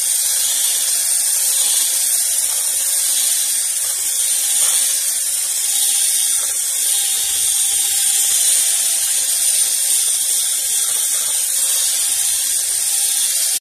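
Electric hand mixer running steadily with a high whine, its twin beaters churning thick cake batter as flour is worked in. It stops abruptly at the end.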